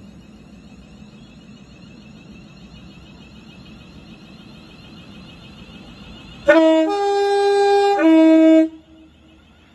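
Train horn sounding its two tones low–high–low, about two seconds in all, starting about six and a half seconds in, over a steady low background noise.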